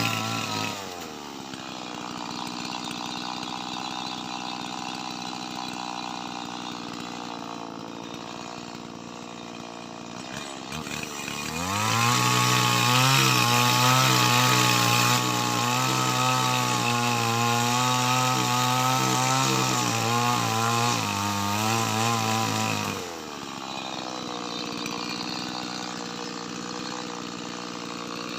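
Stihl MS 180 two-stroke mini chainsaw: it drops to idle just after the start and idles for about ten seconds, then is throttled up about 12 s in and runs loud at high speed with a wavering pitch for about eleven seconds as it cuts through lamtoro wood, then falls back to idle.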